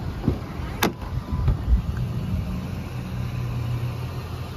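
The pickup's door being opened: a sharp latch click about a second in, then a dull thump as the door swings open, over a steady low vehicle rumble.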